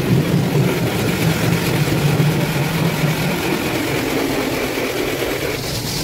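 Automatic car wash machinery running, heard from inside the car: a steady low hum under a hiss of brushes and water on the bodywork. The hum fades about three seconds in.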